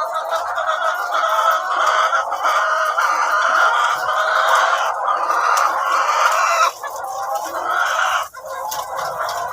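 A flock of ready-to-lay pullets clucking continuously, many birds calling over one another, with brief lulls near the end.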